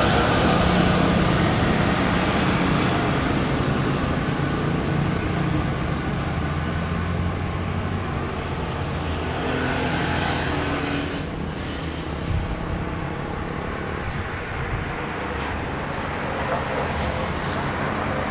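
Jet engine noise from a Boeing 777-300ER's GE90 engines as the airliner rolls out after touchdown: a steady rumble with a low hum that slowly fades as it moves away down the runway.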